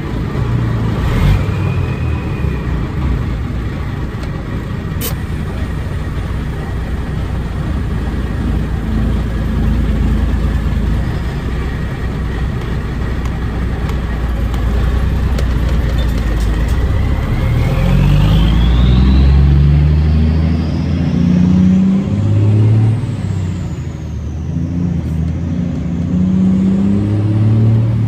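Kenworth cabover's turbo diesel engine running under load, heard from inside the cab. About two-thirds of the way through, the turbo's whistle climbs steeply in pitch, then rises and falls while the engine note steps up and down.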